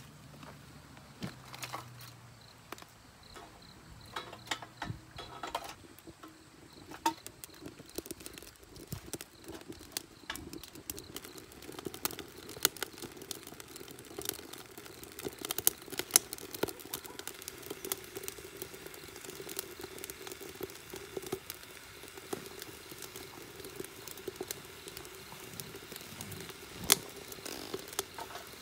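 Wood fire burning in a stainless-steel rocket stove, with irregular crackles and pops and a steady low hum that sets in after several seconds. A few sharper knocks, the loudest near the end as wood is pushed into the stove's feed opening.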